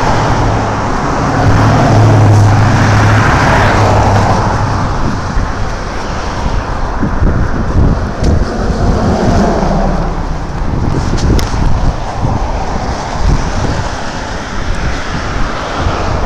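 Road traffic passing on the street alongside, one vehicle's engine hum loudest in the first few seconds, over a steady roadway noise. Irregular low buffeting, like wind on the microphone, runs through the second half.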